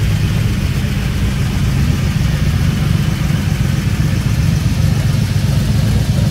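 1950 Alfa Romeo 6C 2500's inline-six engine running steadily at low revs as the coupe rolls slowly past at close range, a deep, even exhaust note.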